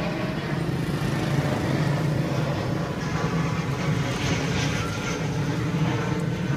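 Steady engine hum of motor traffic, with a louder stretch of hiss about four seconds in.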